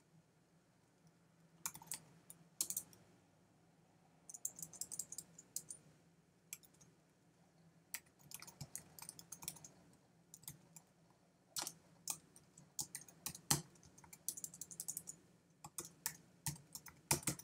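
Typing on a computer keyboard: faint, irregular runs of keystroke clicks with short pauses between them, over a low steady hum.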